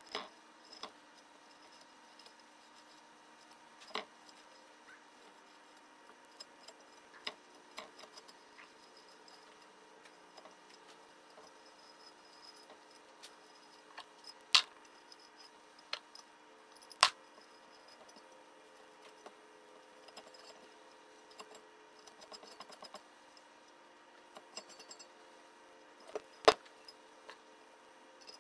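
Sparse light metallic clicks and clinks from engine parts being handled around a two-stroke crankshaft and aluminium crankcase, with a few sharper knocks about halfway through and near the end.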